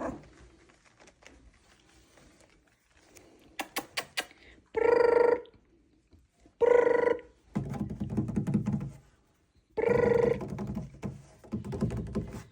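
Toy Schnoodle puppy crying: three short, loud, even-pitched whining cries a couple of seconds apart, with scratching and rustling in between and a quick run of clicks before the first cry.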